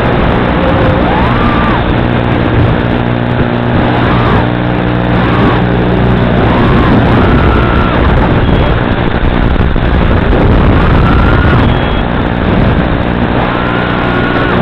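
Motors of a 240 mm FPV racing quadcopter running continuously. Their whine rises and falls in pitch several times as the throttle is punched and eased during flips and dives.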